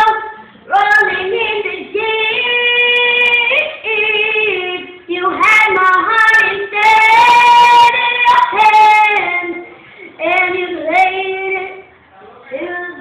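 A young girl singing loudly without accompaniment, holding long notes in phrases broken by short pauses.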